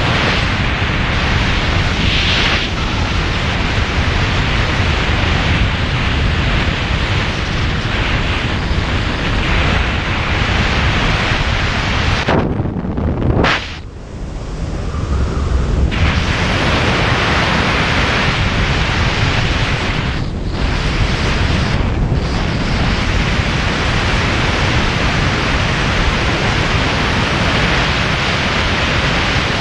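Steady rushing wind noise from airflow hitting a camera mounted outside the cockpit of a Schweizer SGS 1-34 sailplane in flight. The rush briefly drops away about halfway through and dips twice more soon after.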